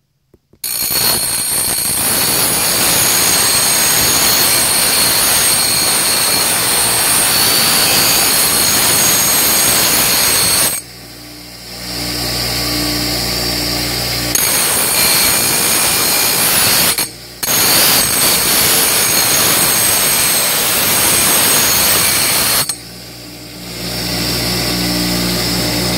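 A bench grinder's wheel grinding the end of a 4130 chromoly steel tube to cope it to a marked line: a loud, harsh grinding noise. Twice, about eleven and about twenty-three seconds in, the tube comes off the wheel and only the grinder's motor is heard running with a steady hum before grinding resumes; there is also a brief break about seventeen seconds in.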